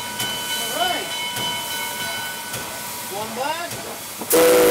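Steady steam hiss in the cab of steam locomotive PRR 643, with a short, loud blast of its steam whistle near the end.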